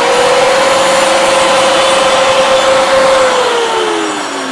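DCA mini dustless table saw with a 4-inch blade, running at full speed with a steady whine over the noise of the blade cutting a small piece of wood, then winding down with a falling pitch from about three seconds in as the motor is switched off.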